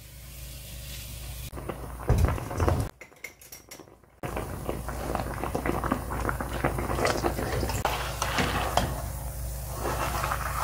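Utensil clicking and scraping against a frying pan in which a monkfish head is simmering in a little bubbling water. There is a short near-silent break about three seconds in.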